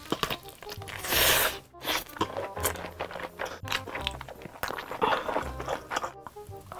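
Close-miked eating: crunchy bites into a sausage wrapped in spicy noodles, then chewing with a full mouth. The loudest crunch comes about a second in. Background music plays underneath.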